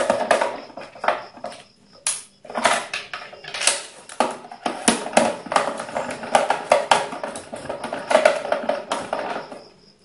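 Hand screwdriver tightening screws into a UPS's plastic case: a busy run of clicks and scraping from the driver tip and screws, with short pauses between bouts.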